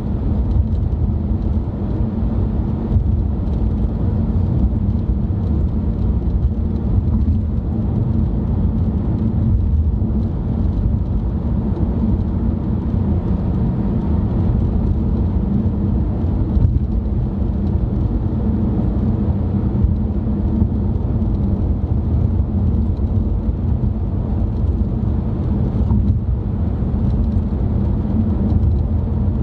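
Steady road and engine rumble inside a moving car's cabin: a low, even drone with a faint knock now and then.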